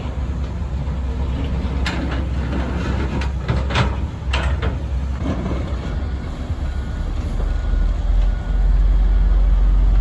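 Diesel engines of a Case tracked excavator and an articulated dump truck running with a steady low rumble, with a run of scraping and clattering strokes as the excavator bucket works gravel, a few seconds in. In the second half a faint beep repeats about every 0.7 s, and the low rumble grows louder near the end.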